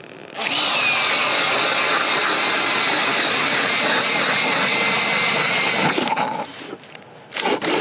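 Makita DHP458 18V cordless hammer driver-drill turning an ice auger down through about 26 cm of lake ice. It runs as a steady motor whine over the noise of the blades cutting ice, starting about half a second in and stopping after about six seconds once the auger is through.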